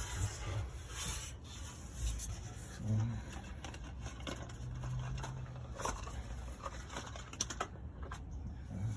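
Scattered light clicks and scrapes of hands handling small plastic parts: the fuel tank pressure sensor and its connector being worked loose and pulled out.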